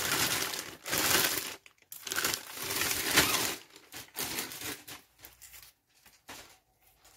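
Plastic wrap crinkling in a run of loud bursts as it is handled and pulled off a soundbar. The bursts grow fainter and die away about six seconds in.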